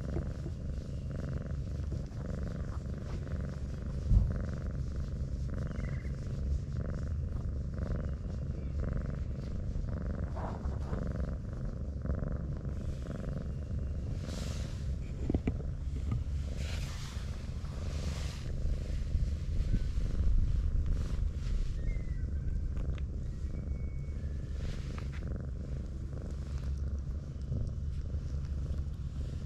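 Brown tabby cat purring steadily as it is stroked, a continuous low rumble. A single sharp knock about four seconds in, and short scratchy rustles now and then in the middle.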